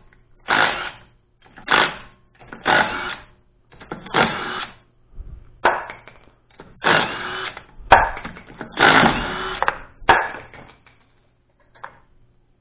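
Cordless impact wrench loosening a car's wheel lug nuts: about nine short bursts of rapid hammering, roughly one a second. A couple of faint clicks near the end.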